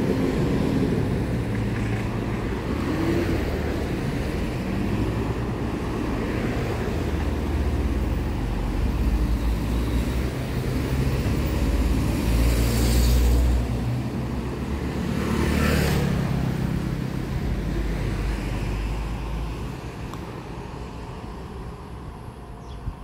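Steady low rumble of distant vehicles, with two brief hissing swells about halfway through, dying away over the last few seconds.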